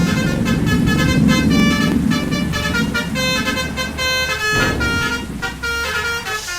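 Bus 'telolet' basuri multi-trumpet musical air horn playing a quick tune of short, changing notes. Engine rumble sits beneath and falls away about five seconds in.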